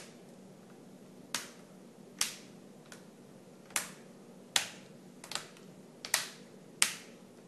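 Plastic clips of a Lenovo Ideapad S405's screen bezel snapping into place as it is pressed onto the lid: about eight sharp clicks, roughly one a second.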